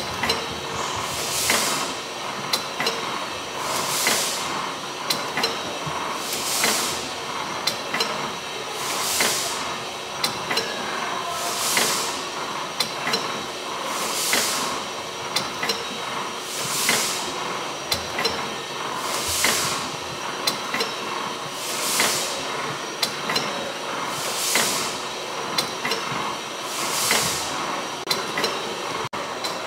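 Single-cylinder horizontal Corliss steam engine by Douglas & Grant running slowly and evenly: a hiss repeats about every two and a half seconds, with sharp clicks from the valve gear in between.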